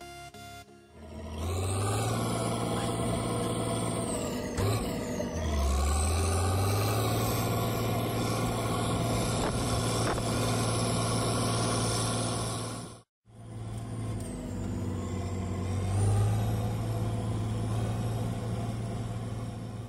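Farm tractor's diesel engine running steadily, its pitch dipping and recovering about five seconds in. The sound breaks off sharply for an instant just past the middle, then the engine goes on.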